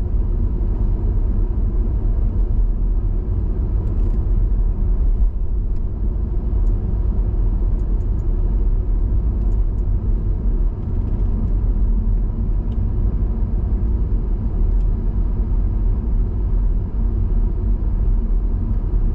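Steady low rumble of a diesel car's engine and tyres, heard from inside the cabin while driving on a motorway.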